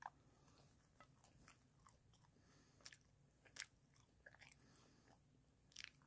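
Faint mouth sounds of a person biting into and chewing a slice of pizza: scattered soft clicks and crunches, the sharpest right at the start as the bite is taken.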